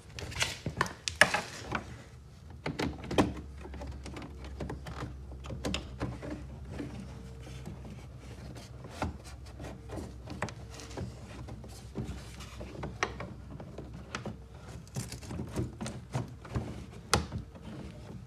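Mesh grille screen knocking, clicking and scraping against the edges of a car's side air intake as it is pushed and slid into place by hand. The knocks are irregular, the sharpest about a second in, about three seconds in and near the end, over a low steady hum.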